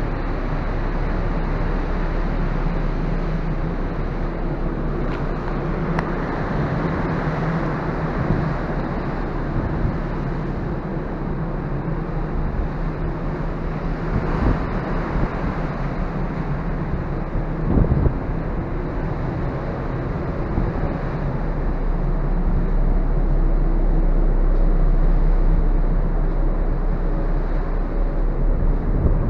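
Steady low drone of a large passenger ferry's engines and machinery heard from an open deck, with wind blowing across the microphone. A few brief knocks stand out, the clearest about two-thirds of the way through.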